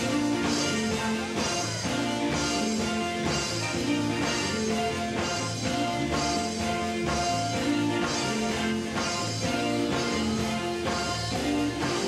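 Live gospel band playing an instrumental passage: electric guitar over a drum kit keeping a steady beat.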